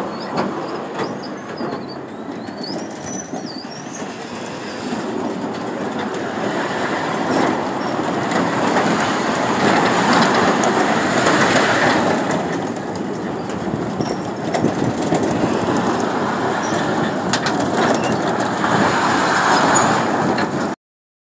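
Spinning tub ride's platform and tubs running, with a steady rumble and rattle that grows louder over the first several seconds as the ride picks up speed, then cuts off suddenly near the end. A bird chirps in the first few seconds.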